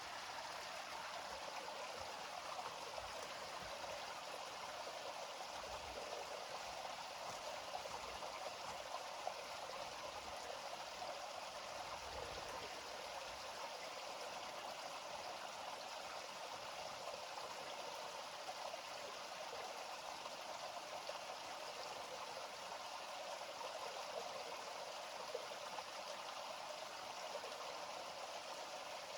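A gentle river flowing steadily, a continuous, even wash of water noise with no pauses.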